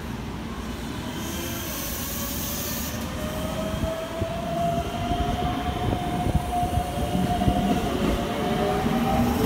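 Keikyu 600 series electric train with Mitsubishi GTO-thyristor VVVF inverter drive pulling away from a station. The inverter whines in steadily rising tones as it accelerates, over the rumble of the wheels on the rails, growing louder toward the end. A short hiss comes about a second in.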